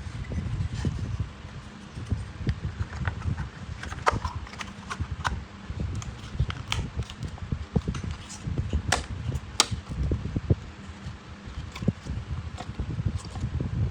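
Wind buffeting the microphone in a steady low rumble, with many small, sharp clicks and taps scattered irregularly through it.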